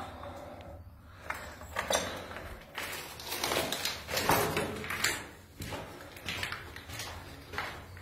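Footsteps scuffing and crunching on a gritty concrete floor, an irregular step every half second to a second, loudest around the middle, inside a small concrete shelter.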